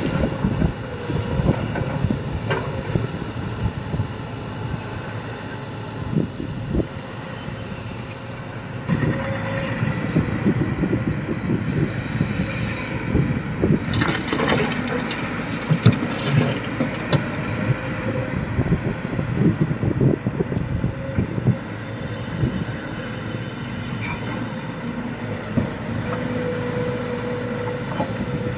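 Sany excavator working: its diesel engine runs steadily under irregular clanks and knocks, which grow busier from about nine seconds in. A brief steady whine comes near the end.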